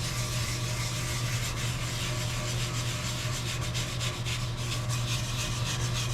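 Brass wire brush scrubbing a cast iron slide wet with automatic transmission fluid and acetone, in quick repeated back-and-forth strokes, working the mix into rust stains. A steady low hum runs underneath.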